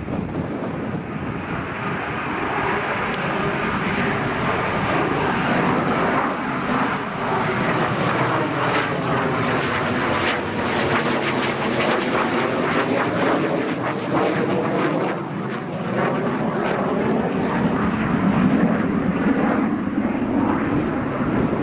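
Eurofighter Typhoon's twin EJ200 turbofans, a loud, sustained jet roar that builds over the first few seconds and then holds. The tone sweeps slowly as the aircraft moves past.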